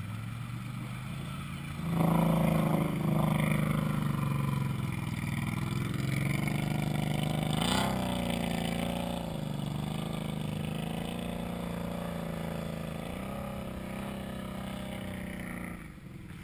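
ATV engine working hard as it tows a stuck ATV out of deep water: the engine picks up about two seconds in, revs up and down, and settles back near the end.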